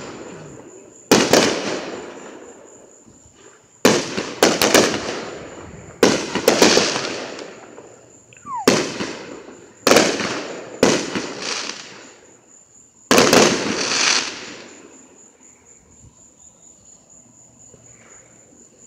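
Aerial fireworks going off: a run of sharp bangs, some in quick clusters, each trailing off in crackle and rumble, with a short falling whistle just before one bang about halfway through. The bangs stop over the last few seconds, leaving only the fading tail.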